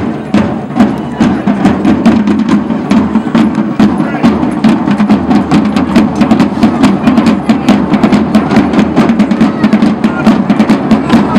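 Drums beating a fast, steady rhythm of sharp strikes, over a constant din of voices.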